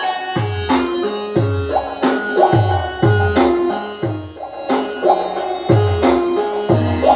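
Music with a steady beat: deep bass-drum hits that drop in pitch, about one a second, under sustained keyboard-like notes, with a brief lull about four seconds in.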